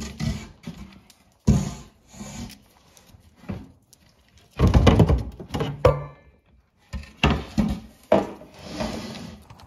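A dog rummaging with its head in a wooden kitchen cupboard: irregular knocks and bumps against the shelf and the things on it, with rustling and sniffing in between. A cluster of louder knocks comes about five seconds in.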